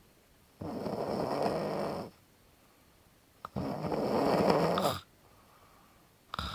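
A person snoring: loud snores roughly every three seconds, each lasting about a second and a half, with quiet pauses between. A third snore begins near the end.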